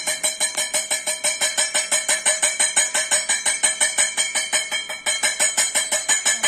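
A metal bell rung continuously with rapid, even strikes, several a second, each ringing with the same bright tones. It is the timing signal for a children's pass-the-cap game.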